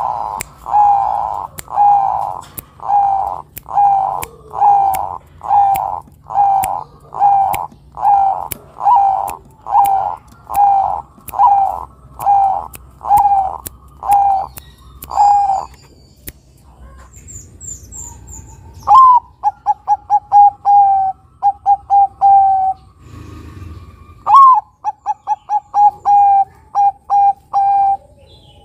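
Zebra dove (perkutut, Bangkok crossbred type) cooing. First comes a long run of evenly spaced coos, about one a second. After a short pause come two bursts of its song, each a rising first note followed by a fast run of short, clipped coos.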